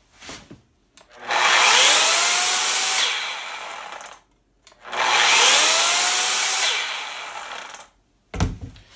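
Makita UC4051A electric chainsaw with a 14.5-amp motor, run twice with no cut: each time the soft start ramps the motor up in a rising whine over about a second, and when the trigger is let go the brake brings the chain to a stop within about a second. A short knock near the end.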